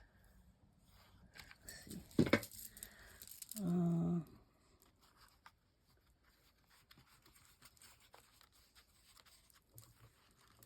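Paper craft materials being handled: a short sharp tear or peel about two seconds in, then faint rustles and light ticks of paper and stickers. A brief hummed vocal sound comes around four seconds in.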